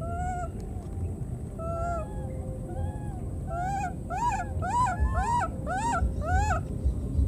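Baby macaque calling: high, arching coos, a few spaced apart, then a quicker run of about six, some two a second, from about four seconds in. A low steady rumble runs underneath.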